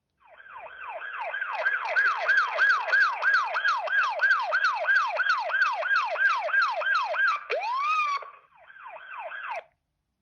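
Alcatel OT 715 mobile phone's built-in ringtone: an electronic tone of rapid falling swoops, about three a second, swelling in over the first two seconds. Near the end comes one rising swoop, a short break, then the falling swoops again, quieter.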